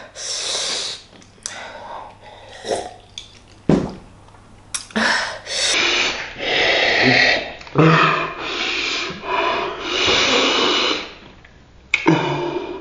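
A person breathing hard in and out through the mouth, a series of loud hissing breaths several about a second long, from a mouth burning on spicy tteokbokki.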